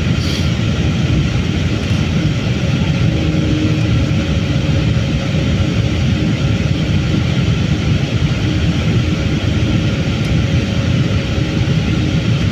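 Steady in-flight cabin noise of an Embraer E195-E2 from a window seat: the Pratt & Whitney PW1900G geared turbofans and the airflow along the fuselage, a deep even rush with a faint steady hum.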